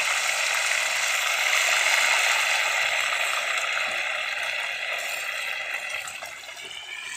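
Hot oil sizzling steadily as a batch of tilapia fillet pieces deep-fries, easing off somewhat over the last few seconds.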